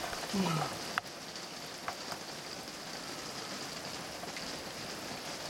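Floodwater flowing and splashing in a steady, even hiss. About half a second in, a short low tone falls in pitch, and a sharp click comes about a second in.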